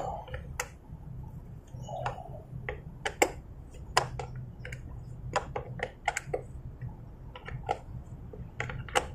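Allen key working a bolt out of a motorcycle's metal side cover: irregular sharp metallic clicks as the key is turned and re-seated in the bolt head, about a dozen over several seconds.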